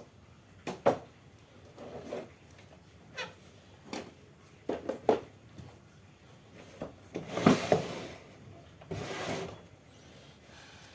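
Handling noises: irregular clicks and knocks with a few short rustling scrapes, the loudest stretch about seven seconds in.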